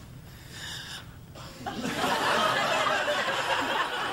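Studio audience laughing, quiet at first, then swelling loudly about two seconds in.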